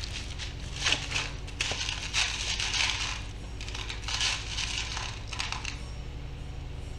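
A hand rummaging through a plastic bowl of small parts, with irregular rattling, clinking and rustling.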